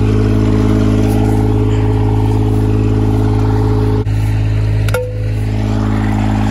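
John Deere 430 garden tractor's three-cylinder diesel engine running steadily close by, with a sharp click about five seconds in.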